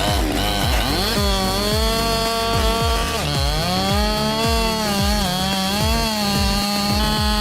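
Two-stroke chainsaw running at high revs, its pitch dipping and climbing back twice, with a music track's steady beat underneath.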